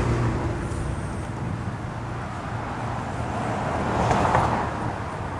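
Street traffic noise, with a vehicle going past and swelling louder about four seconds in, then fading.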